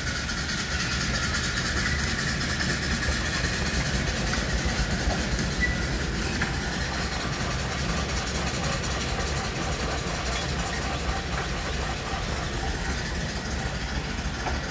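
Steam traction engines driving past at a walking pace: the steady running of the steam engine together with its steel wheels rolling over the brick road.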